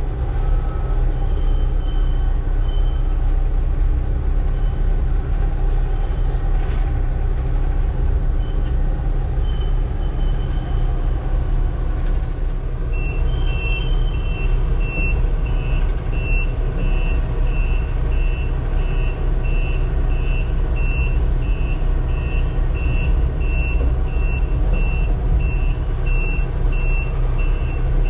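Case excavator's diesel engine running with a steady low rumble heard from inside the cab. About halfway through, a travel or backup alarm starts beeping evenly, about three beeps every two seconds.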